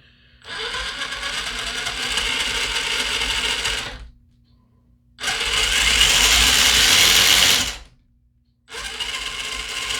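Redcat Gen 8 RC crawler's electric motor and drivetrain whirring with the wheels spinning freely, fitted with Treal overdrive front portal gears. It runs in three bursts with short pauses between, and the middle burst is the loudest.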